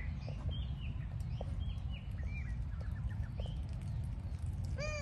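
Animal calls: short high chirps repeating every fraction of a second over a steady low rumble, with one loud, short rising-and-falling squeak near the end.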